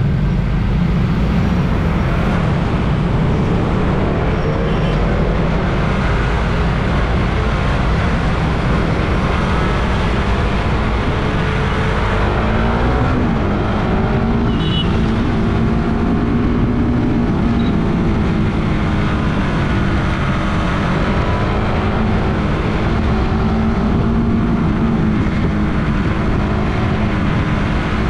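Suzuki Raider 150 Fi's single-cylinder four-stroke engine running on the move, its pitch rising and falling several times, under a steady heavy rumble of wind on the microphone.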